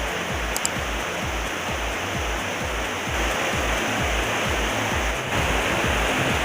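Waterfall rushing steadily, a little louder from about three seconds in, with background music carrying a steady low beat about twice a second.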